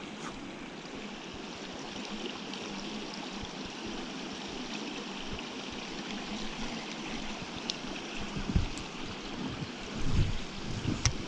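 Small creek flowing over riffles: a steady rush of running water, with a few low thumps near the end.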